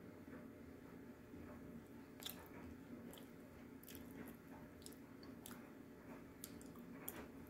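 A person biting and chewing a dry edible slate stick, with several sharp, crisp crunches scattered through and soft chewing in between.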